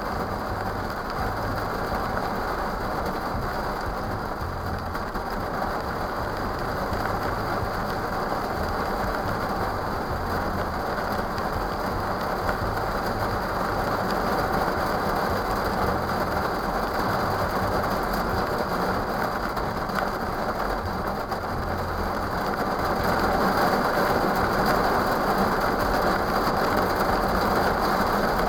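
Rain on a car, picked up by a dashcam's built-in microphone inside the cabin: a steady, dull hiss over a low rumble, getting a little louder near the end.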